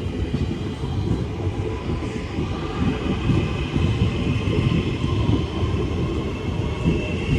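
West Midlands Railway Class 323 electric multiple unit pulling out of the station: a steady low rumble from the wheels and running gear, with a faint electric whine from the traction motors.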